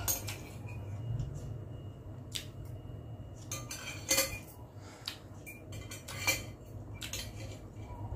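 A metal spoon and fork clink and scrape against a glass bowl while noodles are scooped up: a string of short, sharp clinks, the loudest about four and about six seconds in, over a low steady hum.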